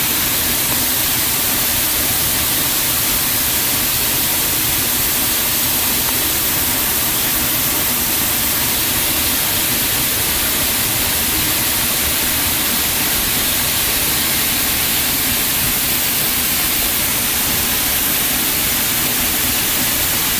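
The Sgwd yr Eira waterfall's curtain of water falling onto rock, heard close up: a steady, loud hiss of falling water.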